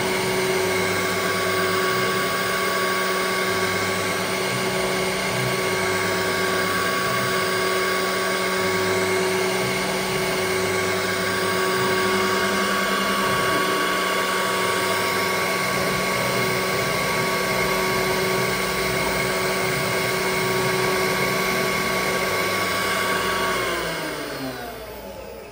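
6 kW HSD spindle of a CNC router running at steady speed with a steady whine, then spinning down near the end, its pitch falling as it slows. A lower hum cuts in and out every second or so under it.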